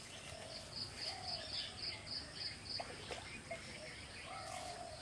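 Outdoor wildlife calls: a run of about eight high, evenly spaced chirps, about four a second, over short, lower bird calls.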